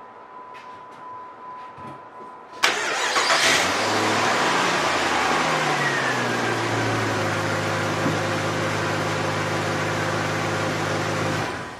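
Jeep Grand Cherokee engine cranked and started, its speed sliding down from the start-up flare to a steady idle. It runs for about nine seconds and then cuts off suddenly near the end.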